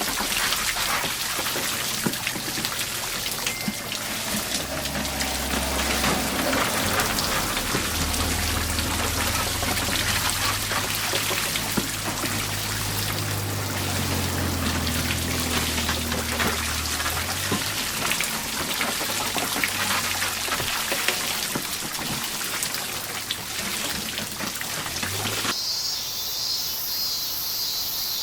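Running water splashing and trickling steadily, with a low hum underneath for a stretch in the middle. About 25 seconds in, the sound changes abruptly to cicadas buzzing.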